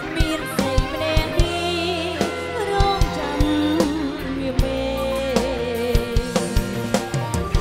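Live band playing a Khmer romantic ballad: a woman singing the melody, with wavering held notes, over drum kit and electric guitar, the drums striking steadily.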